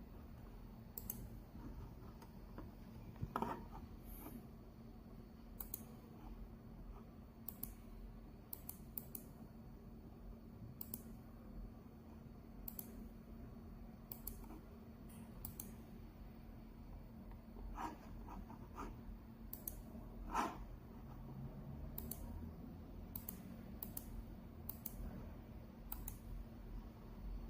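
Sparse, irregular small clicks, about twenty of them, over a faint steady hum, with two louder knocks, one about three and a half seconds in and one about twenty seconds in.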